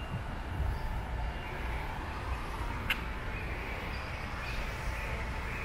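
Outdoor ambience: a steady low rumble with a few faint high chirps, and a single sharp click about three seconds in.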